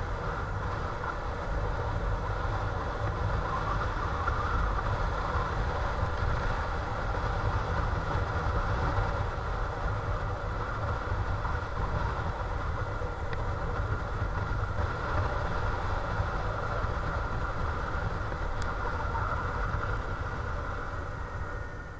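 Motorcycle riding along a road, its engine running steadily under a low rumble of wind on the microphone.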